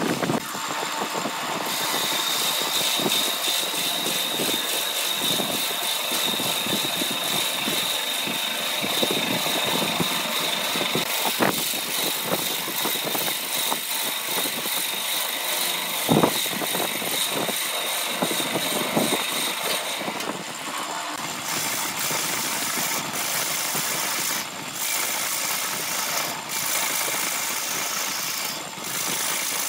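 Wood lathe running while a boring bit in a tailstock drill chuck cuts into the neck of a spinning segmented wooden vase, throwing chips: a steady rushing cutting noise with scattered clicks and a high whine for the first several seconds. About two-thirds through it changes to a handheld gouge cutting the spinning wood.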